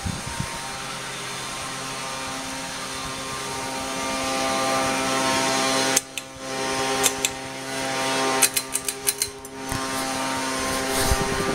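52-inch Harbor Breeze Cheshire ceiling fan running, its motor humming steadily under a rush of air noise. About halfway the sound changes abruptly, and a scatter of sharp clicks and ticks follows.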